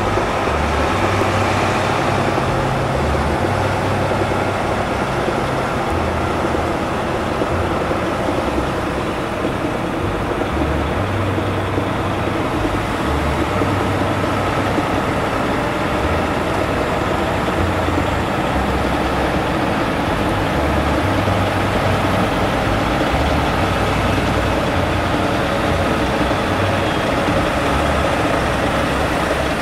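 Diesel semi-truck tractor engine running steadily at low speed, a continuous low rumble.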